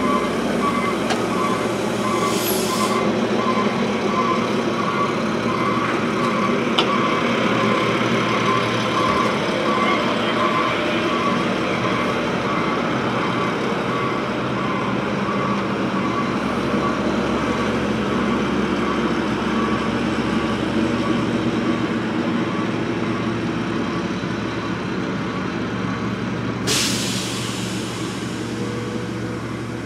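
Heavy truck engine running steadily, with a reversing alarm beeping at a regular pace through the first half. An air brake hisses briefly about two seconds in and again near the end.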